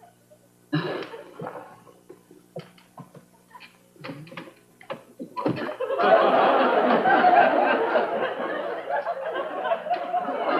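Sitcom audience laughter: scattered laughs and a few sharp knocks at first, then swelling into loud, sustained laughter about six seconds in.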